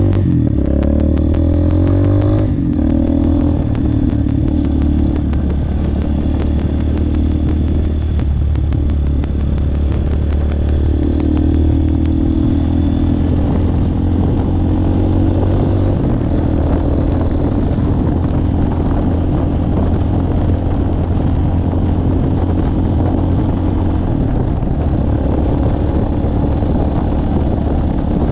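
Small dual-sport motorcycle engine running under way, heard from the rider's seat, its note stepping up and down in pitch several times through the gears.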